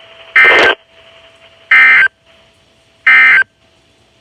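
Emergency Alert System End of Message signal: three short, harsh bursts of SAME digital data, about a second and a half apart, marking the end of the warning broadcast. A faint steady hum runs underneath.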